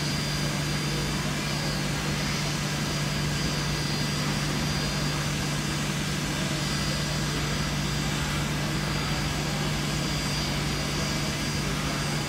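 Diesel locomotive idling: a steady, unchanging engine hum with no rises or breaks.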